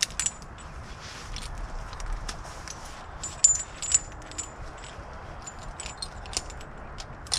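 Metal climbing hardware on an arborist's harness, carabiners and rope devices, clinking and jangling as it is handled, in a string of sharp clicks, some with a brief high ring.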